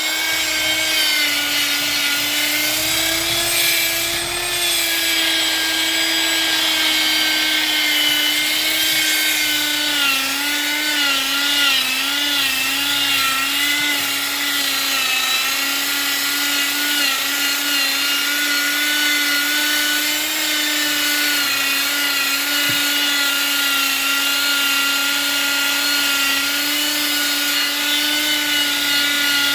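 Handheld electric woodworking power tool running continuously on wood, its motor giving a steady high whine whose pitch wavers slightly as it works.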